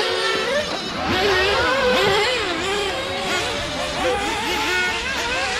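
Several racing vehicles' engines or motors revving up and down against each other, their pitches rising and falling and overlapping: a race heat in progress.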